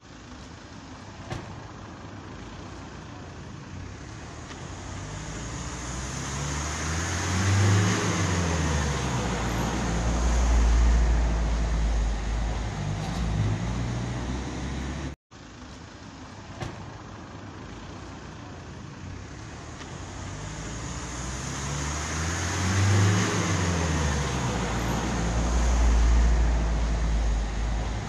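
Street traffic: a motor vehicle approaches and passes close by, its engine note bending up and then down in pitch, with a deep rumble as it goes past. The same pass is heard again about halfway through.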